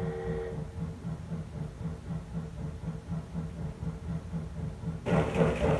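Sound-equipped model diesel locomotive playing a diesel engine running with a steady low throb, the tail of a horn blast ending about half a second in. A louder, fuller sound comes in near the end.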